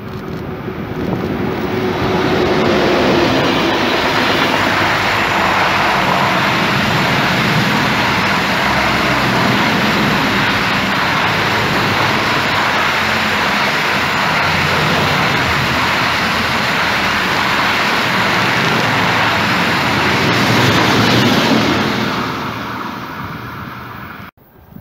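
Rolling-highway freight train behind a red electric locomotive, lorries riding on flat wagons, passing at speed: a loud steady rush of wheels on rails that builds over the first two seconds and fades near the end before cutting off abruptly.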